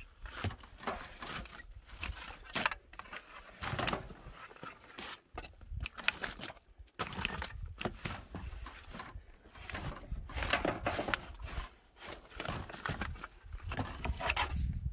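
A wooden stick scraping and knocking on wooden boards as frozen food scraps are pushed deeper into a worm bin: irregular scrapes and knocks.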